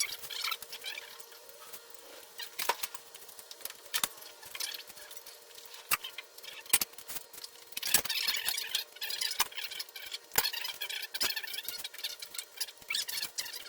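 Irregular clinks and knocks of hand tools on metal, with bursts of scraping and rustling, as work goes on to remove a seized engine from a car. A faint steady hum sits underneath.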